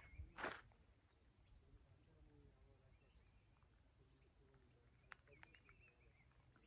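Near silence: faint outdoor background hiss, with a couple of soft footsteps in the first half second.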